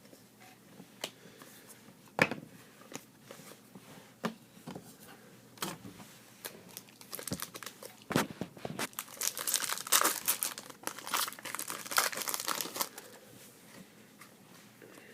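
Foil trading-card pack wrapper being torn and crinkled, a dense crackling run from about seven to thirteen seconds in, after scattered light clicks and snaps of the cards being handled.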